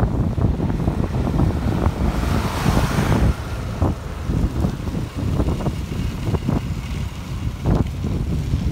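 Wind buffeting the microphone of a moving vehicle over a low road rumble, in irregular gusts. About two seconds in, a brief rushing swell rises and fades as an oncoming vehicle passes.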